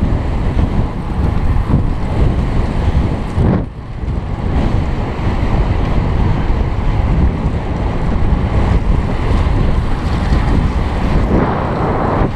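Heavy wind buffeting on a helmet-mounted camera's microphone as a road cyclist rides at speed, with a brief lull about three and a half seconds in.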